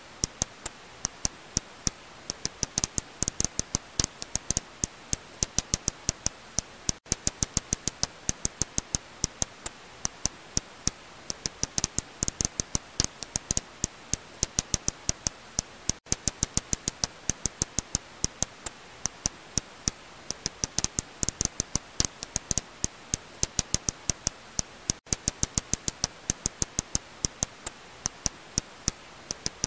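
Serotine bat echolocation calls made audible, heard as a rapid, irregular stream of sharp dry clicks over a steady hiss. The click stream breaks off for an instant three times.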